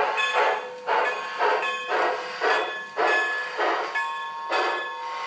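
Onboard sound system of an LGB Sumpter Valley 2-6-6-2 model steam locomotive playing steam exhaust chuffs from its speaker, about two a second, spacing out toward the end, over a faint steady whine.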